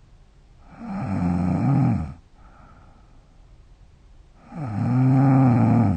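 A young woman snoring in her sleep: two loud snores, each about a second and a half long, roughly three and a half seconds apart, with a buzzing pitch that wavers through each one.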